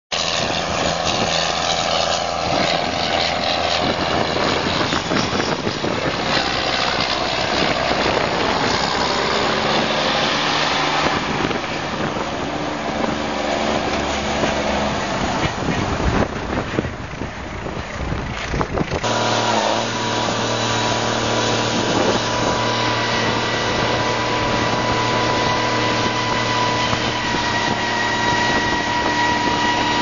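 Case IH 9250 four-wheel-drive tractor's diesel engine running as it pulls a grain cart, uneven at first. After a cut a little past halfway it runs steadily while the cart's auger unloads grain into a semi trailer, with a steady high whine over the engine.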